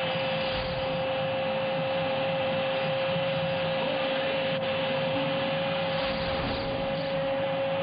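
Football stadium crowd noise after a goal, with one long steady tone held for about nine seconds. The tone slides down in pitch just before it settles.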